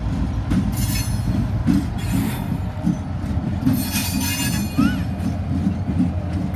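CSX diesel-electric locomotives rolling slowly past, their engines rumbling steadily. Short bursts of high wheel squeal come about one, two and four seconds in.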